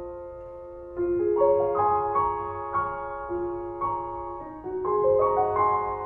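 Background music: a slow piano piece, with notes struck one after another and left to ring and fade.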